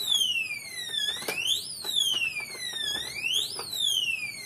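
FU88G electronic safe's built-in alarm wailing: a siren tone that slides slowly down and then quickly back up, over and over, set off by three failed fingerprint attempts and sounding until the batteries are removed. A few short clicks from handling the lock sound over it.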